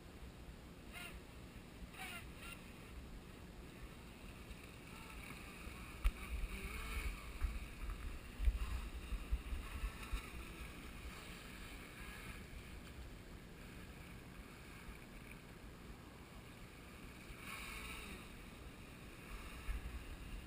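Radio-controlled jet boat with a 540 electric motor running on the water, its whine faint and swelling louder about six seconds in and again near the end as it runs closer. Wind buffets the microphone throughout.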